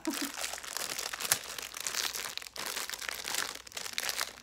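Candy packaging crinkling and crackling as it is handled and opened, with one sharper crackle about a second in.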